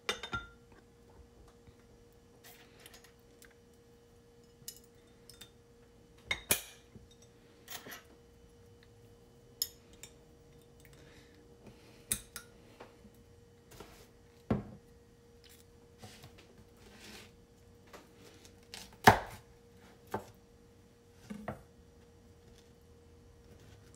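Scattered light clinks and knocks of a glass jar and utensils being handled on a wooden cutting board, about a dozen at irregular intervals, with one sharper knock about three-quarters of the way through, over a faint steady hum.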